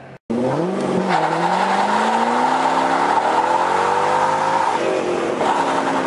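Corvette V8 revving hard in a burnout, its pitch climbing steadily for about four seconds over the steady squeal of the rear tyres spinning. Near the end the revs dip briefly, and then the squeal picks up again.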